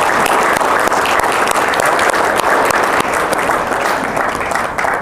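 Audience applauding: a steady spread of many hands clapping, easing off near the end.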